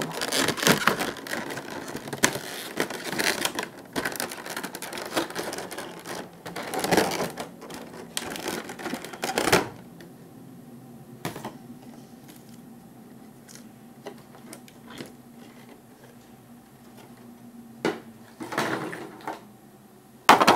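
Packaging being handled: cardboard and clear plastic rustling, crackling and clicking as a model is taken out of its box. It is dense for about the first ten seconds, then drops to scattered clicks, with a short burst of rustling near the end and a sharp click just before it stops.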